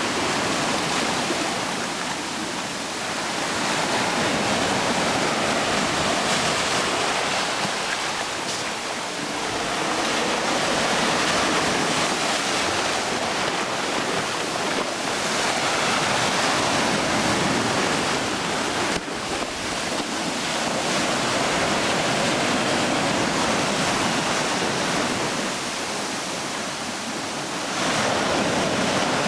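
Rough-sea surf breaking and washing up a sandy beach: a steady rush of water that swells and eases as each wave comes in.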